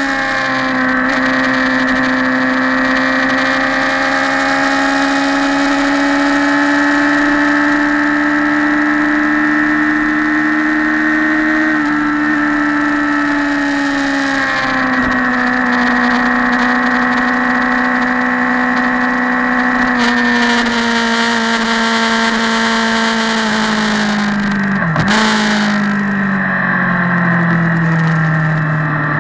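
Motorcycle engine running at steady road speed, heard from on the bike with wind rushing past. The engine note steps down about 14 seconds in and falls steadily over the last several seconds as the bike slows.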